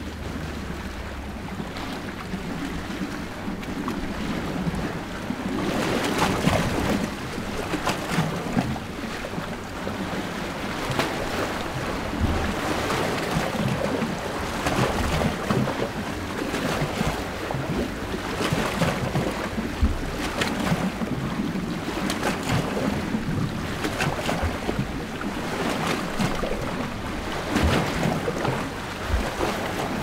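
Mediterranean sea waves washing and splashing at the shore, recorded in air just above the water. The washes come in repeated surges every couple of seconds and grow stronger about six seconds in.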